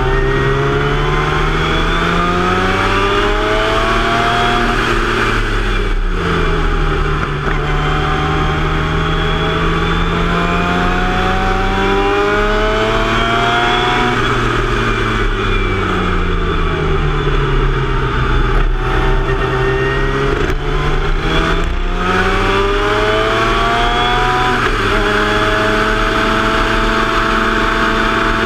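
Formula Mazda race car's rotary engine, recorded onboard at speed. Its pitch climbs under acceleration, drops at each upshift and falls away when braking for corners, then holds steady near the end.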